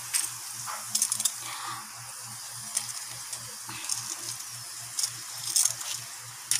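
Hot cooking oil frying with a steady sizzle, broken by scattered sharp crackles and pops.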